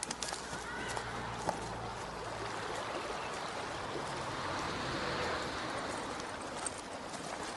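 Steady rushing hiss of flowing river water, with a faint low hum underneath for the first couple of seconds.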